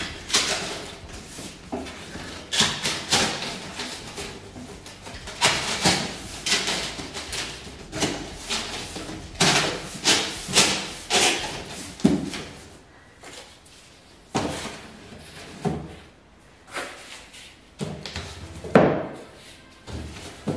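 Cardboard pieces of a cardboard cat house being pushed into their slots and pressed into place: a string of irregular scrapes, knocks and thumps, busier in the first half and more spaced out later.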